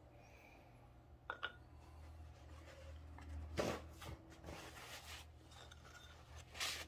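Faint rustling of a paper towel and light handling of a small piece of wood as stain is wiped onto it: a couple of soft clicks, a short scuff midway and another near the end, over a low steady hum.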